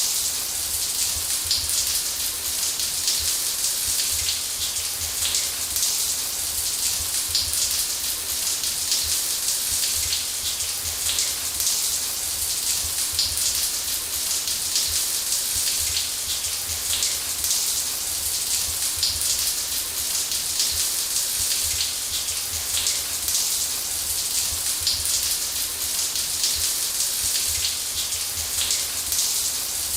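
A shower running steadily, its water spraying and pattering onto a hard surface in an even hiss.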